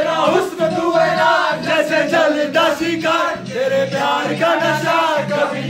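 A group of young men chanting and singing loudly together, shouting over music that plays underneath.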